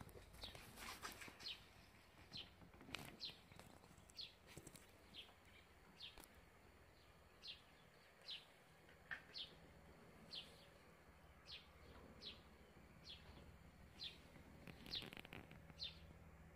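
Faint bird chirping: short, high, falling notes repeated roughly once a second.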